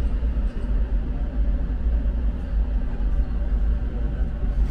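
Steady low rumble inside a sleeper-train compartment while the train stands at the station.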